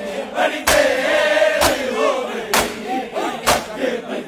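A crowd of mourners doing matam, slapping their chests together in time. There are four loud slaps about a second apart, with men chanting between the beats.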